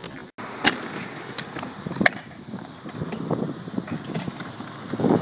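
Inline skate wheels rolling on a skatepark ramp, with sharp clacks of the skates hitting the ramp and its coping about a second in and again about two seconds in.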